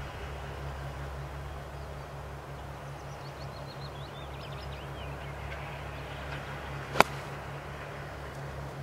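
A 9-iron striking a golf ball once: a single sharp click about seven seconds in, over a steady low hum.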